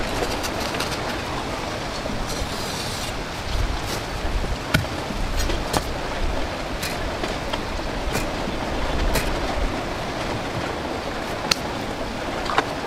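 Wind noise on the microphone, with gusty low swells, and a sharp tick about once a second from roughly a third of the way in.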